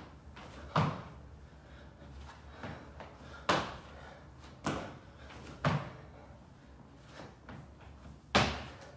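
Feet and hands thudding on a wooden floor during burpees: jump landings and hand plants, about six heavy thumps at an uneven pace, the loudest near the end.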